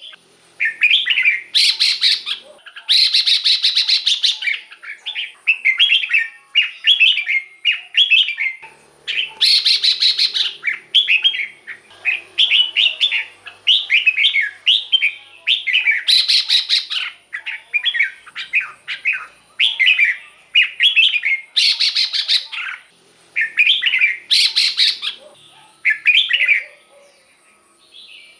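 Red-whiskered bulbul singing short, repeated warbled phrases, broken every few seconds by harsher rapid chattering bursts. A faint steady high-pitched whine sits underneath.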